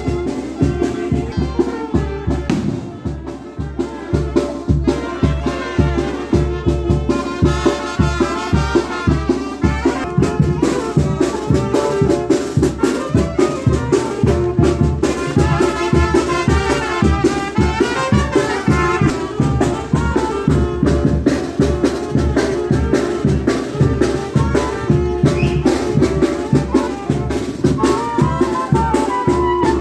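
Brass band playing a festive tune with trumpets over a steady drum beat.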